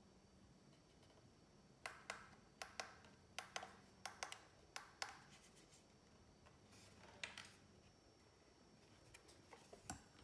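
Hands handling a white plastic CD player: a quick run of about ten sharp light clicks and taps on the casing, a brief rubbing scrape, then a few more clicks as the player is turned over.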